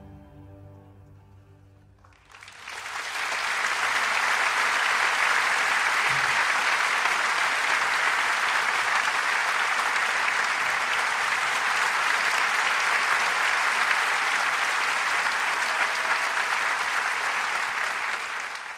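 Applause from a large crowd, swelling in after the background music fades, holding steady, then fading out near the end.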